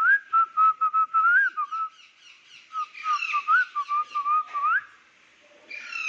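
Whistling in two runs of short, warbling notes, each run about two seconds long with a pause between, used to call a pet parrot. Near the end, a brief harsh parrot squawk.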